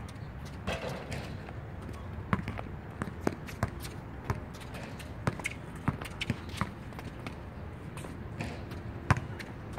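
Basketball bouncing on an outdoor hard court as it is dribbled, a run of sharp, irregular thuds, with one louder impact near the end.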